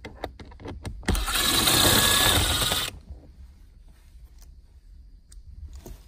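A cordless drill-driver with a T15 Torx bit runs for about two seconds, backing out a small screw from plastic center console trim, then stops suddenly. Light clicks of handling come before and after it.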